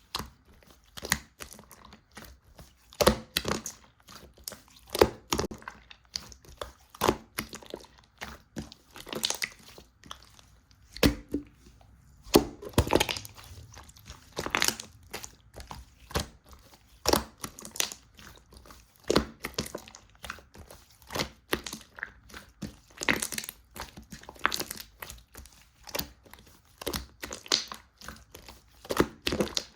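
Soft slime being squeezed, pressed and stretched by hand, giving sticky crackling clicks and pops about once or twice a second, unevenly spaced.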